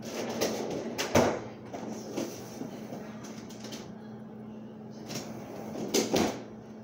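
Kitchen handling noise: knocks and bumps of things being moved and set down on a counter, with rustling between them. The loudest knock comes about a second in and two more come near the end, over a steady low hum.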